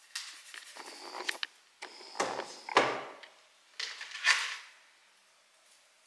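Unboxing handling noises from a new smartphone, its box and its packaging: three short bouts of rustling and scraping with light clicks and taps.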